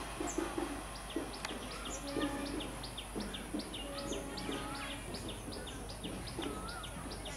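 Small birds chirping rapidly and continuously, several short sharp chirps a second, over the faint low rumble of a receding passenger train.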